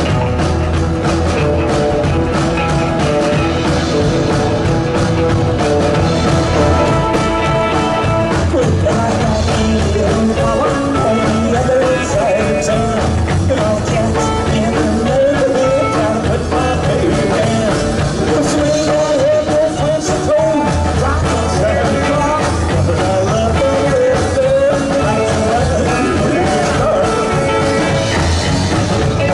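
A rock band playing a rock-and-roll number live, loud and continuous, with a wavering lead melody coming in over the band about eight seconds in.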